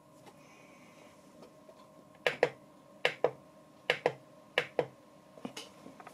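Four sharp double clicks, evenly spaced, from the push-button knob of a bench power supply's digital control module being pressed, followed by two softer clicks near the end.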